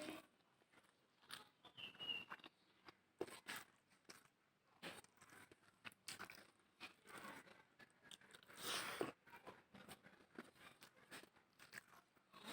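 Faint sounds of a person eating: scattered short mouth clicks and crunches of chewing, with one louder, longer noise about two-thirds of the way through.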